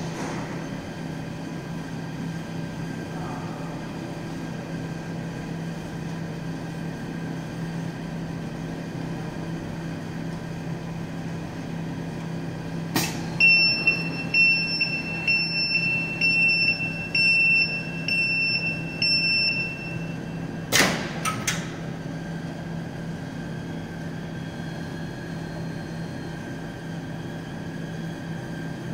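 Reflow oven's cooling fans and conveyor running with a steady hum. About halfway through, after a sharp click, an electronic beeper sounds a run of short high beeps for about six seconds, and a second click follows.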